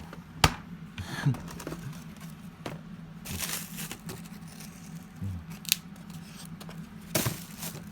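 Frozen-food packages being handled in a freezer: plastic crinkling and rustling, with a few sharp clicks and knocks, over a low steady hum.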